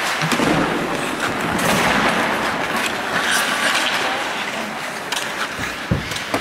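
Ice hockey play: skate blades scraping the ice and sticks clicking on the puck over steady rink noise, with one sharp knock near the end.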